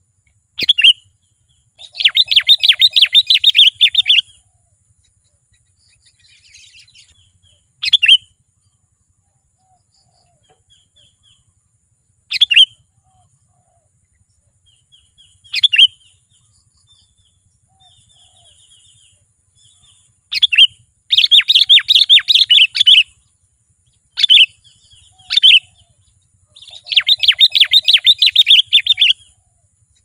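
Sooty-headed bulbul calling: single short, bright notes every few seconds, and three bouts of about two seconds each of fast, rapidly repeated chattering notes, one early on, one about two-thirds through and one near the end.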